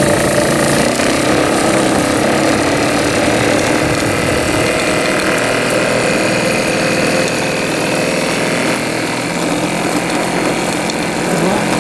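Live-steam model steam launch with a Cheddar boiler running, steam blowing out of the funnel in a steady hiss with a mechanical hum beneath it.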